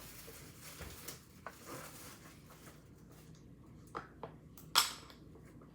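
Scattered light clicks and taps from ice pieces and a silicone pop-it toy being handled, with one sharper knock near the end.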